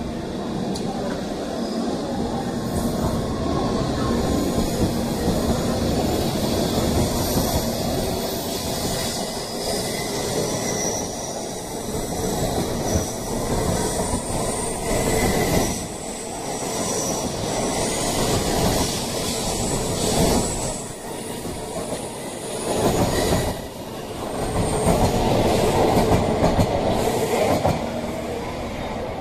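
N700A Shinkansen train pulling out and rolling past, its wheels clattering on the rails with thin high-pitched squeals and whines over the noise. It swells loudest near the end.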